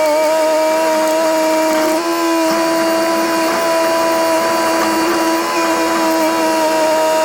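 Komatsu D21P bulldozer's diesel engine running steadily under load, a continuous droning note with a brief dip and change in pitch about two seconds in.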